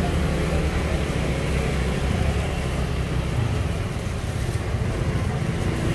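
Steady low rumble of road traffic, with no single vehicle or event standing out.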